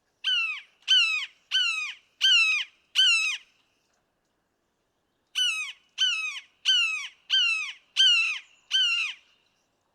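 Red-shouldered hawk calling: a series of five loud, down-slurred calls, about one and a half a second, then a pause of about two seconds and six more.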